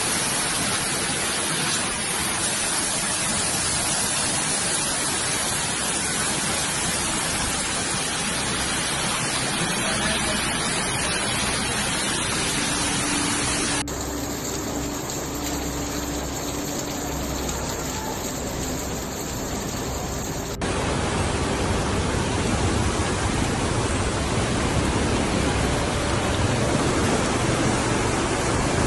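Fast-flowing floodwater rushing, a loud steady wash of noise. The sound changes abruptly twice, about 14 and 21 seconds in, each time to more rushing water.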